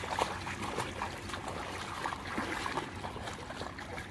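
Water sloshing and splashing, with many small clicks and knocks scattered throughout.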